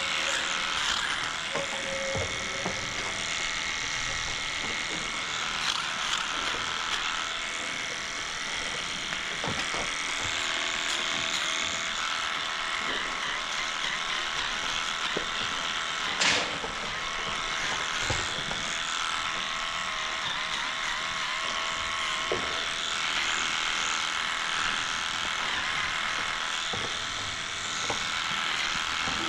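Handheld electric clippers running steadily as they cut through the long hair of a cow's tail switch, with one sharp knock a little past halfway.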